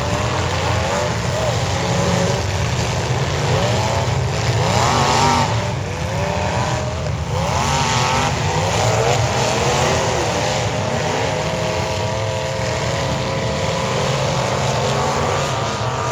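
Several demolition derby cars' engines revving loudly at once, their pitches climbing and falling over each other over a steady low rumble.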